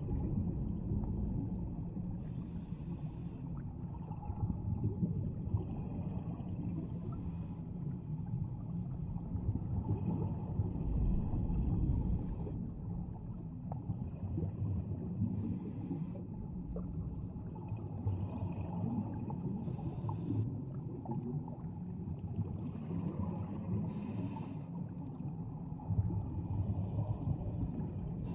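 Scuba diver breathing underwater through a regulator: a hissing rush of breath and bubbles about every four to five seconds over a steady low underwater rumble.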